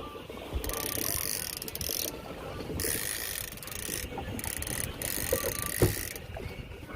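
Fishing reel ratcheting in four separate high, hissy bursts, each about half a second to a second and a half long.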